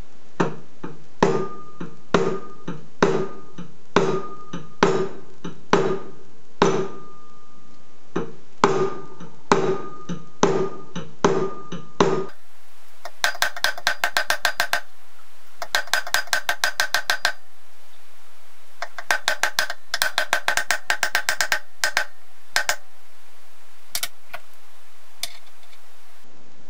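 Small ball-peen hammer tapping a thin brass tube held against a steel rod, each blow ringing briefly. The taps come steadily at about two a second for roughly the first half, then in quick runs of lighter taps, about ten a second, separated by short pauses, thinning out near the end.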